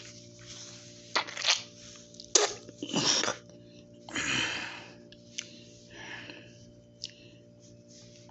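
A woman's coughing fit: a run of short coughs, loudest in the first four or five seconds and fainter toward the end, over a steady low hum.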